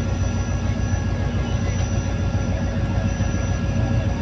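Diesel-electric locomotive pulling a passenger train away from a station: a deep, steady engine rumble with a steady high whine over it.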